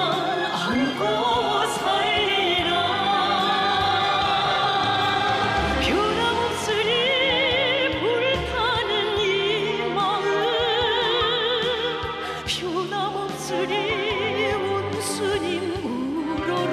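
A Korean-language song sung in an operatic style with wide vibrato over an orchestra.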